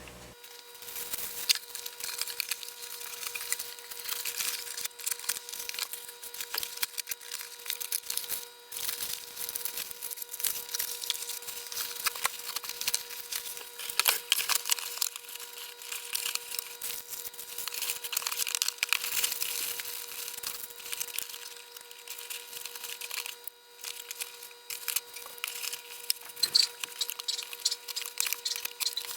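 Cardboard box and plastic packaging being handled as a cordless phone and its parts are packed back into the box: continuous irregular rustling, scraping and light knocks.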